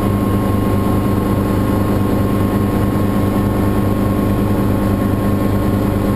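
Small aircraft's engine and spinning blades running steadily in flight, a loud constant drone with a steady hum and a thin tone near 1 kHz, heard from on board.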